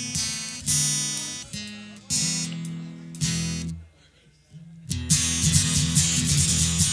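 Acoustic guitar strumming chords that ring out and fade, a brief stop about four seconds in, then louder, busier strumming.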